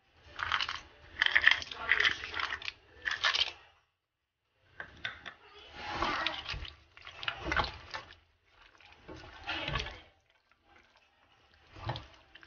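Cashew nuts tipped into a stone-coated nonstick frying pan of saucy chicken and peppers, then stirred with a spatula. The sound is a run of scraping, clattering strokes, each about a second long, broken by a short pause about four seconds in.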